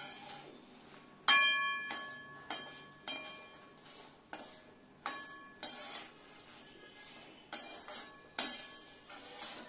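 A perforated steel skimmer scraping and clinking against an iron kadai while stirring minapa vadiyalu (dried urad dal dumplings) frying in a little oil. About a dozen irregular strikes ring briefly, and the loudest comes about a second in.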